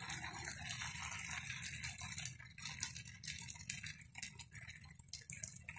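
Thin flour batter sizzling faintly in a hot nonstick pan as a steel ladle spreads it in a spiral, with a steady hiss and many small crackles and ladle scrapes. The hiss thins out near the end.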